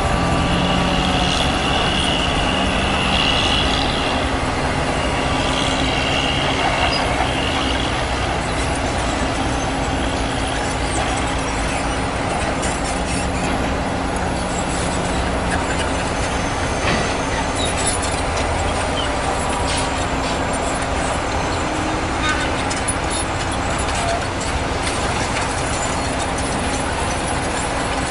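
Diesel engines of heavy earthmoving machinery and loaded dump trucks running steadily. A high squeal sounds through the first several seconds.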